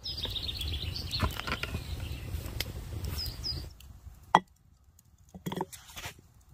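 Small birds chirping over a low rumbling noise, which stops a little before four seconds in. Then a single sharp, loud knock as a mug is set down on a wooden stump, followed by a few softer knocks.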